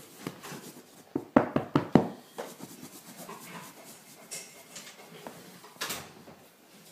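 About six sharp knocks in quick succession a second or so in, and another near the end, with soft rubbing and handling noise between them.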